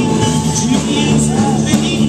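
Live band playing amplified music: electric guitars over a drum kit, with pitched notes bending in the mix.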